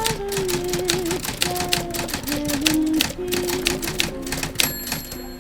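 Typewriter keys clacking rapidly and irregularly over an old radio broadcast of a band playing a slow song between sung lines. A high ringing tone sounds briefly near the end.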